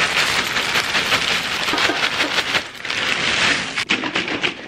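Dry cinnamon-square cereal pouring from a plastic bag into a ceramic bowl: a dense rattling patter of small crunchy pieces landing, with a brief lull a little before halfway, then trailing off near the end.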